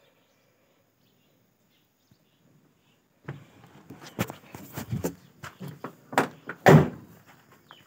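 Near quiet at first, then, from about three seconds in, a run of knocks, scuffs and thumps as a person climbs down out of a truck cab, with the loudest thump about a second before the end.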